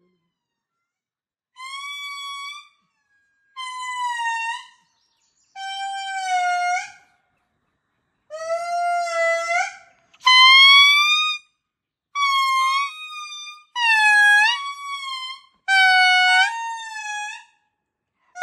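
Indri lemur singing: eight loud, horn-like wailing calls, each about a second long and bending up or down in pitch, with short pauses between them.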